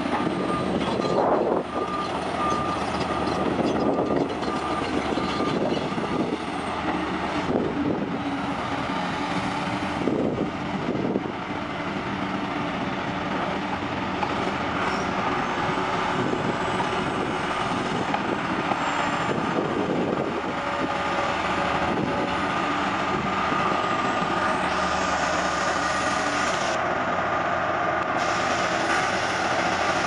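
Heavy diesel engine of a Caterpillar 345CL excavator running steadily under load while it drags a flooded crawler dozer out of a ditch.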